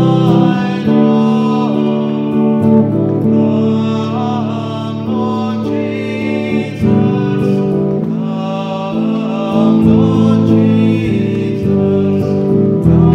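A man singing a worship song, accompanied by guitar chords.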